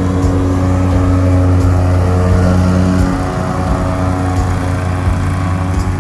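John Deere Z970R zero-turn mower's V-twin engine running steadily under mowing load.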